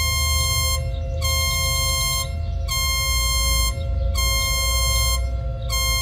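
EAS-style emergency alert alarm: a buzzy tone pulsing on for about a second and off for half a second, about five times, over a steady lower drone and a deep rumble.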